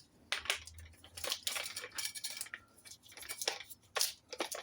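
Irregular metallic clinks and short scrapes of hand tools being handled and put down, among them a worn wire brush.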